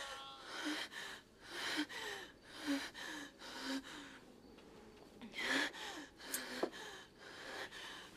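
A woman sobbing: gasping, shaky breaths about once a second, each with a short whimper, and a louder sob about five and a half seconds in.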